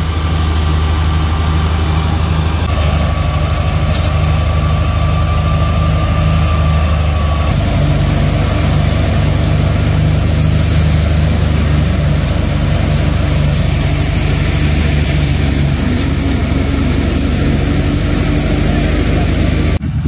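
A tractor-driven wheat thresher running steadily: the tractor engine's low, even drone with the thresher's rattle over it. A faint steady whine sits over the first several seconds, and the mix shifts abruptly about seven and a half seconds in.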